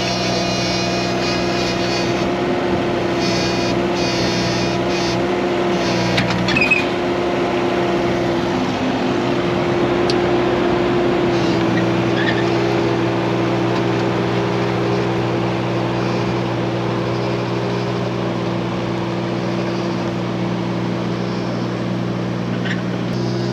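Hitachi Zaxis mini excavator's diesel engine running steadily, with a brief clank about six or seven seconds in and a slight rise in the engine note around ten seconds in.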